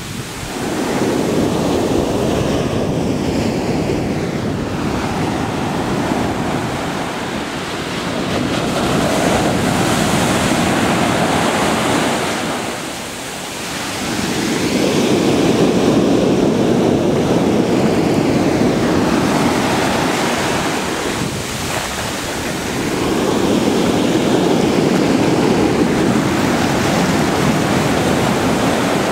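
Pacific Ocean surf breaking and washing up the shore in four long surges, each swelling and ebbing over several seconds.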